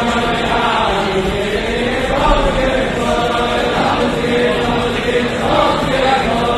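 Music with a choir chanting in slow, drawn-out voices.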